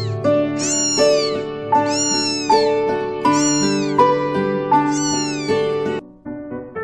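A very young kitten mewing over and over: four or five high, thin cries, each rising and falling, about one every second and a half, over background music. The mews stop near the end.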